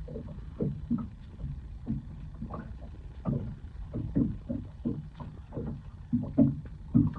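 Small waves lapping and slapping against the hull of a small boat lying still on calm water, in irregular knocks two or three a second over a low steady rumble.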